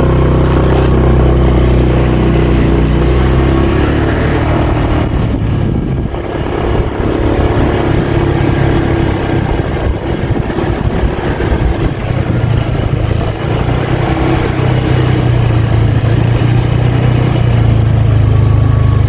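A motor vehicle's engine running while under way, its pitch shifting up and down as it drives, over steady road and wind noise.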